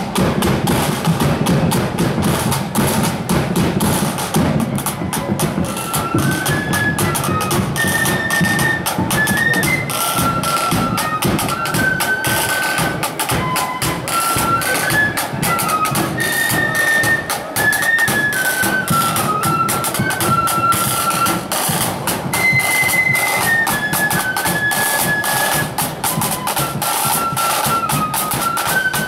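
A marching flute band: flutes playing a tune over rapid side-drum strokes and a bass drum beat.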